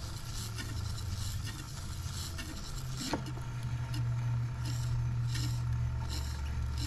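A small motor hums steadily and steps up in pitch after a click about three seconds in, under a faint crackling rasp of VHS tape being pulled off its reel, its sticky-shed layers coming unstuck with a sound like masking tape peeling.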